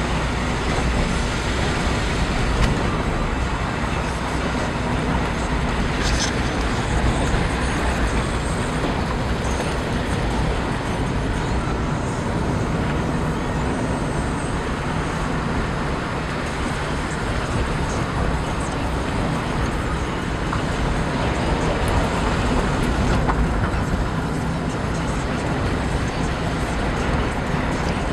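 A car's engine and tyres running steadily on a narrow tarmac lane, heard from inside the cabin as a constant rumble and road noise.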